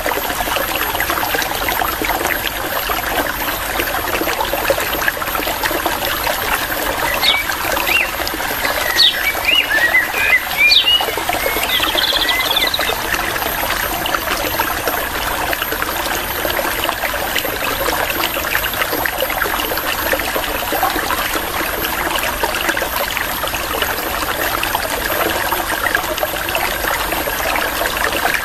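Running water in a stream, trickling and splashing steadily, with a short burst of quick bird chirps about a quarter to halfway in.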